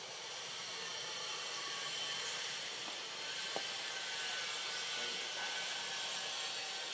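Steady high-pitched drone of tropical forest insects: a dense hiss threaded with faint steady high tones. One sharp click comes about halfway through.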